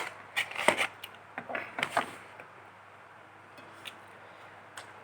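A cluster of sharp clicks and knocks of a takeaway food container being handled and its lid pressed shut, then a few faint isolated ticks.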